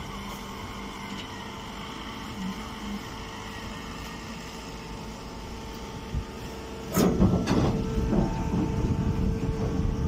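Horizontal hydraulic hay baler's motor and pump humming steadily. About seven seconds in, a sudden louder rustling and crackling starts and keeps going.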